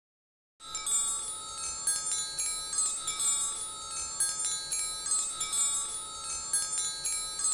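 Tinkling wind chimes over a steady held note, as an intro sting, starting about half a second in.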